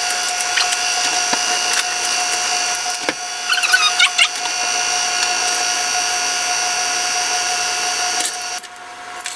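Electric tilt-head stand mixer running with a steady whine as it beats cake batter. It is switched off about eight and a half seconds in.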